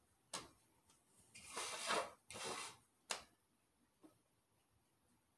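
Faint handling of a clear plastic bowl held on a glass dish: a light click, two brief rustling scrapes around the middle, and another click about three seconds in.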